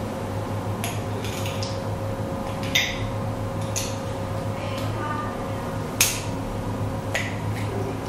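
A steady low electrical hum with a scatter of sharp clicks, the two loudest about three and six seconds in.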